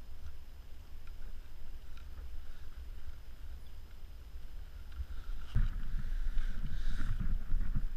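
Wind buffeting the microphone as a steady low rumble. About two-thirds of the way through it turns louder and more uneven, with rustling and soft knocks as the rod, reel and fabric fish bag are handled close to the microphone.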